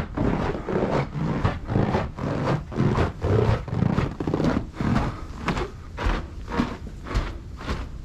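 Footsteps on a snowy path in a steady walking rhythm, about two steps a second.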